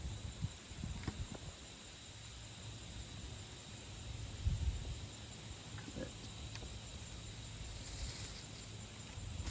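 Digging in garden soil to harvest potatoes: a few scattered thumps and scrapes of the digging tool, the strongest about four and a half seconds in, over a steady low rumble.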